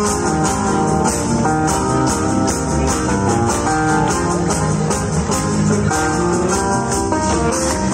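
Live rock band playing through a PA system: amplified guitars, including strummed guitar, over a steady drum beat.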